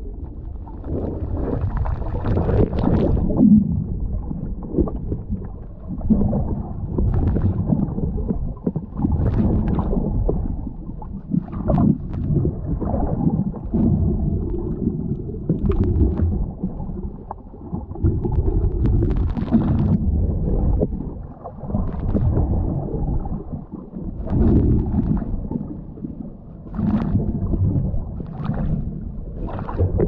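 Low, muffled underwater rumble picked up by a camera in a waterproof housing, swelling and fading every couple of seconds, with scattered short clicks.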